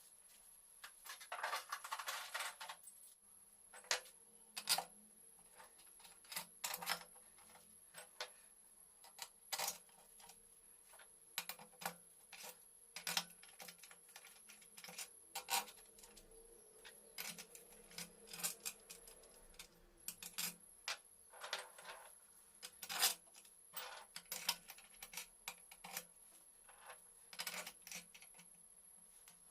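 Small metal parts and hand tools clinking, tapping and scraping at irregular intervals, with a longer rattling scrape about a second in.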